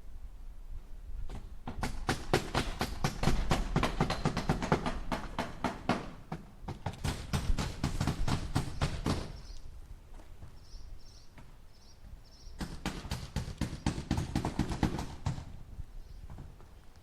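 Hammer striking nails into wood in three quick runs of blows, about five a second, with short pauses between the runs.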